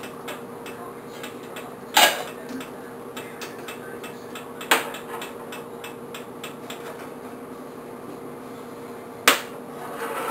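Metal-cased USB drives and kitchen tongs knocking against a pot and stovetop as the drives are lifted out of boiling water and set down to cool. Three sharp clanks come about 2, 5 and 9 seconds in, over a faint rapid ticking and a steady hum.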